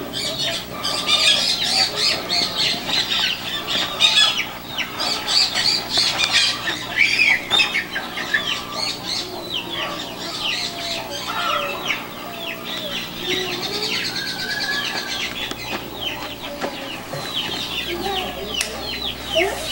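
Many birds chirping in a dense, continuous chorus of short, high calls that slide downward, with chickens clucking lower down.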